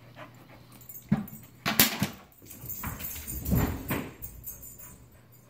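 A dog playing with an iFetch Too automatic ball launcher: a few sharp knocks and clatter, the loudest about two seconds in, as the ball goes into and out of the launcher. A short rising and falling whine follows around the middle, then it fades.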